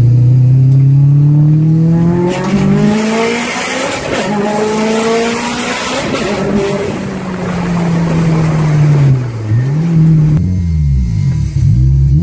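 Subaru STI boxer four-cylinder engine through a Tomei exhaust accelerating, its pitch climbing for about two seconds, then a few seconds of loud rushing noise over the engine. From about nine seconds in, the engine is revved up and down in a quick series of throttle blips.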